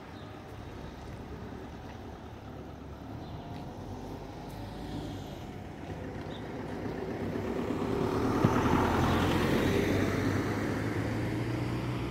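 Road traffic: a motor vehicle passing close by, growing louder from about six seconds in, loudest around nine seconds, then fading, over a steady low engine hum.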